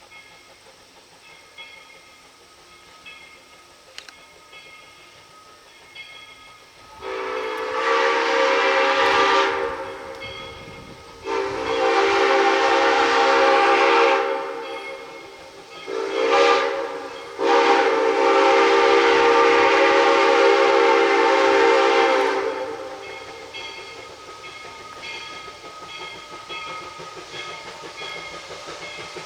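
Steam locomotive whistle blowing two long blasts, a short one and a final long one, the grade-crossing signal, each blast several notes sounding together. A faint regular ticking of the engine runs under it before and after.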